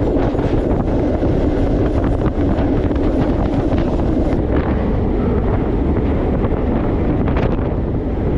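Heavy wind buffeting the microphone over the steady low rumble of a moving freight train.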